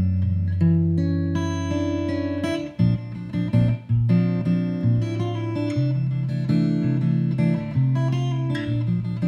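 Hollow-body electric guitar played through an amplifier: an instrumental melody with chords over changing bass notes, and a couple of brief breaks about three to four seconds in.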